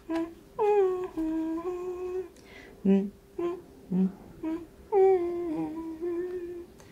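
A woman humming a gentle tune without words: short separate notes, with two longer held notes that slide in pitch, the first about a second in and the second near the middle.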